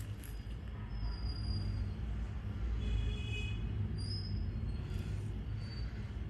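Steady low background rumble, with a few short high-pitched tones; a brief cluster of high tones about three seconds in.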